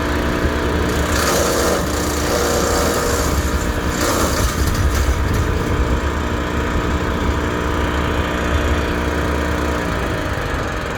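Tractor-driven Land Pride WC1503 PTO wood chipper running steadily, with two spells of crackling as branches are chipped, about a second in and about four seconds in. Its note sags slightly near the end.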